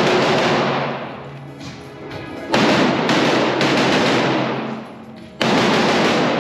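Rifle shots fired in quick strings inside an indoor shoot house, echoing off the walls. A fresh loud volley starts about two and a half seconds in and another near the end, over background rock music.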